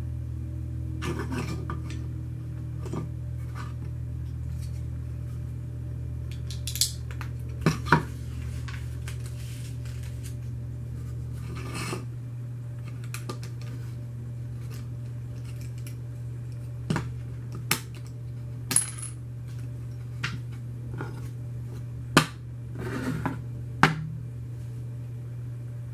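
Plastic Lego pieces clicking and clattering as they are handled and snapped together: a dozen or so sharp clicks at irregular intervals over a steady low hum.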